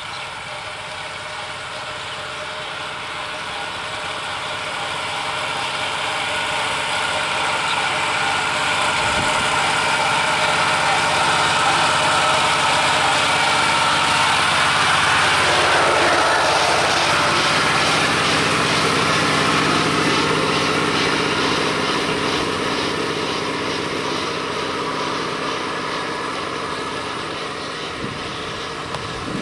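An engine drone swells slowly, is loudest a little past halfway where its tone sweeps through as it passes, then fades. Beneath it runs the steady note of a power tiller's engine.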